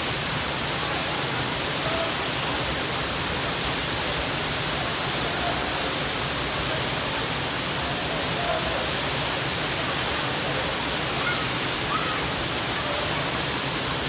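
Waterfall pouring over a rock ledge into a plunge pool: a steady, even rush of falling water.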